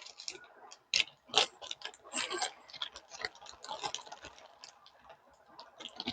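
Irregular clicks, taps and short scrapes of parts being handled and fitted on a benchtop wood planer, with no motor running.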